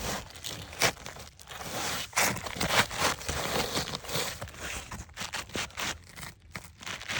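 Asphalt shingles being handled and slid into place, making irregular scraping, crunching and rustling sounds with a few sharp clicks.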